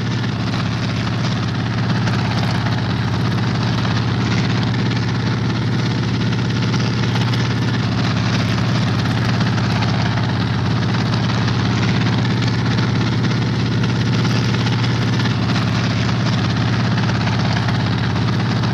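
Steady engine and rotor drone of a hovering Sikorsky HO4S anti-submarine helicopter, a low hum with a wide rushing noise above it.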